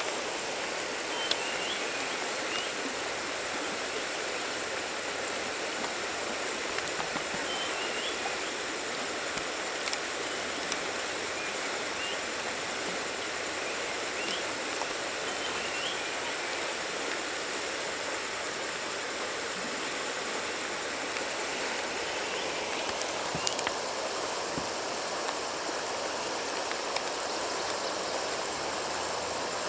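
Shallow river water rushing steadily over a stony riffle.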